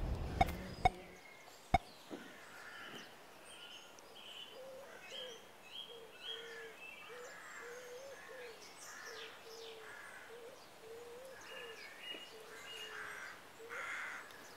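Birds calling: a run of low, repeated cooing notes with higher chirps from other birds over them. A few sharp clicks sound in the first two seconds.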